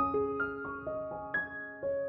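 Background music: a slow, gentle keyboard melody played one note at a time, each note ringing on as the next comes in.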